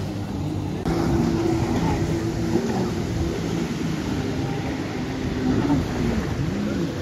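Engine of a motorized watercraft running under way, its pitch wavering up and down over steady water and wind noise. It gets louder about a second in.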